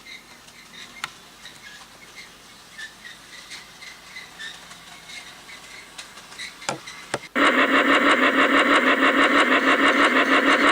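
An engine starts up: after a quiet stretch with faint chirps and two brief whirring sweeps, it suddenly catches about seven seconds in and runs loudly with a rapid, even pulsing of about six beats a second.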